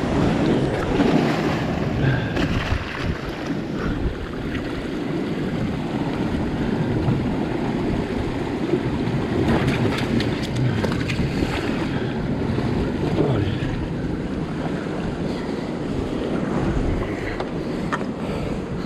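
Sea surf washing and foaming over rocks, with wind buffeting the microphone; a few faint knocks near the middle.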